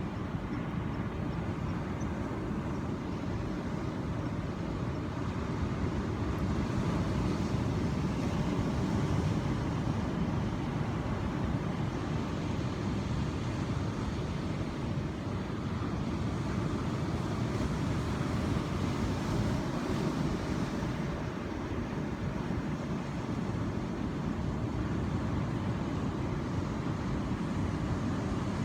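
Ocean waves: a steady, low rush of surf that slowly swells and eases without any sharp breaks.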